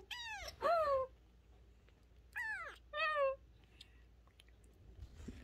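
Two-week-old kitten mewing four times: short, high-pitched mews in two quick pairs about two seconds apart, each falling in pitch at the end.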